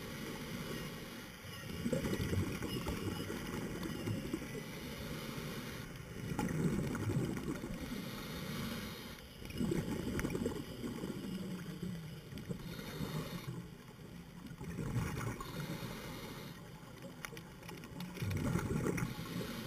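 A scuba diver's breathing through the regulator, heard through the underwater camera housing: surges of exhaled bubbles about every three to four seconds, with quieter gaps for the in-breaths.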